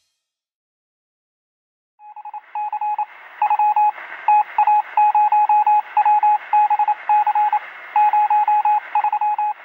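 Phone keypad tones: a rapid, irregular run of short electronic beeps at one steady pitch, in clusters of quick repeats, starting about two seconds in.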